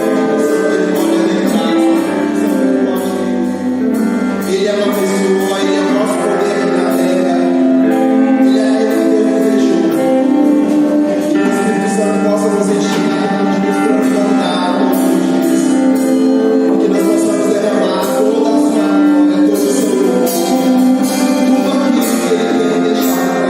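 Live worship music with singing: sustained chords and a voice, with a steady percussive beat.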